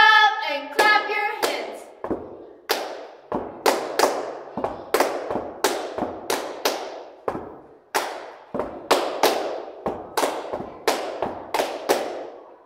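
Hand claps in an uneven rhythm, about two a second, each ringing on in the hallway's echo. A bit of singing ends the phrase about a second in.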